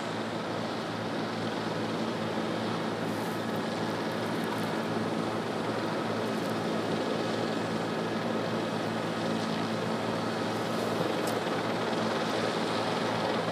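Steady noise of a news helicopter's engine and rotor heard from on board: a constant low hum with a few fixed tones under an even hiss.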